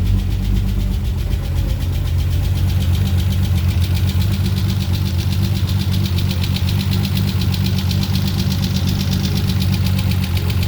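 The freshly rebuilt twin-turbo 3.0 L V6 of a 1994 Mitsubishi 3000GT VR-4 is running at a steady, cammed idle on its first start. A fast, even ticking sounds above the engine note.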